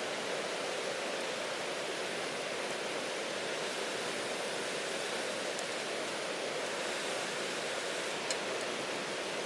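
River water rushing steadily. A few faint pops of a campfire cut through it, the sharpest one near the end.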